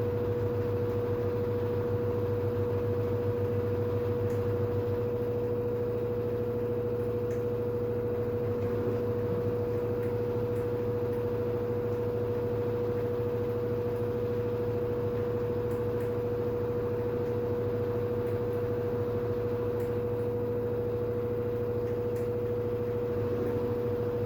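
LG FH4A8TDN2 front-loading washing machine spinning at speed, a steady whine over a hum. A low drone in the sound eases about five seconds in.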